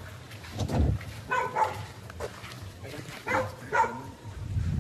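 A dog barking, a couple of short barks at a time, twice. There are low thuds in between.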